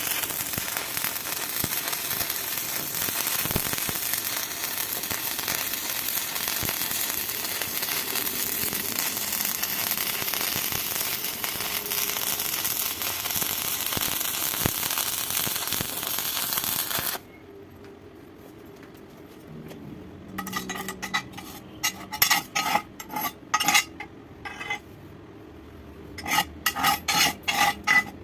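Stick (arc) welding: the arc crackles and sizzles steadily for about seventeen seconds, then stops abruptly. Later come two runs of rapid, ringing metal-on-metal taps.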